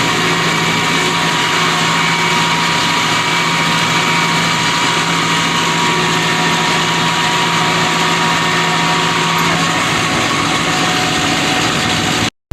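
Tractor engine running steadily under load while driving a New Holland 630 round baler, a dense, even machine noise with a steady whine. The whine drops out about three-quarters of the way through, and the sound cuts off abruptly at the very end.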